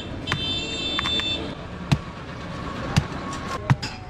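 Street traffic with a vehicle horn sounding for the first second and a half. After it come about three sharp knocks of a large knife chopping into palm fruit husks.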